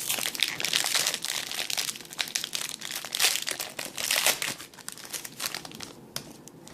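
Wrapper of a baseball card pack being torn open and crinkled in the hands: a dense run of crackles with a few louder rips, thinning out about five seconds in.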